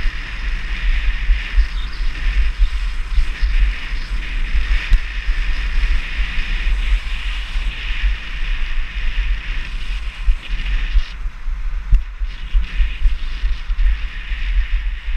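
Wind buffeting a body-worn GoPro's microphone during a fast run down a groomed ski slope, over a steady hiss of sliding on packed snow. The hiss eases briefly about eleven seconds in, then returns.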